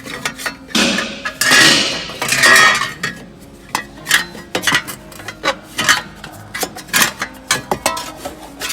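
Metal tools clinking and clanking in a run of sharp strikes, with a few longer clattering rattles in the first three seconds, as a steering rack assembly is worked on.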